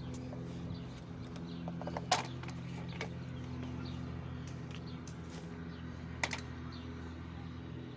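Two sharp plastic clicks, about four seconds apart, from handling the unplugged BLACK+DECKER 3-in-1 trimmer while it is reset for edging, over a steady low hum.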